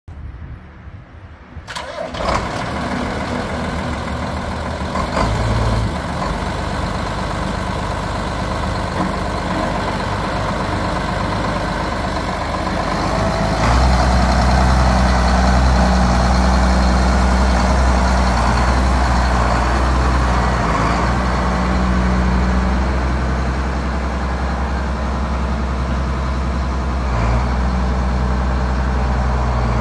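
Case IH 7120 Magnum tractor's turbocharged six-cylinder diesel engine starting up about two seconds in, then running steadily. About fourteen seconds in it grows louder and deeper as the tractor pulls away.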